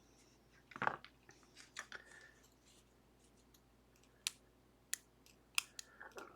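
Small metal clicks and taps from the parts of a disassembled pin-tumbler lock being handled: a handful of sharp, separate ticks, the loudest about a second in and several more spread over the last few seconds.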